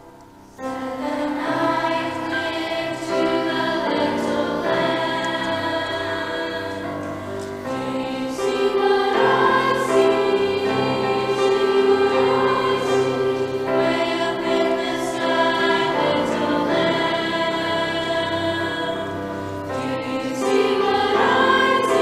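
Choir of children and adults singing a Christmas song with grand piano accompaniment, the voices coming in about half a second in.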